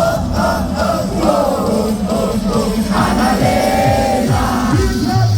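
Loud live party music over a PA: a heavy bass beat under a sung, chorus-like melody.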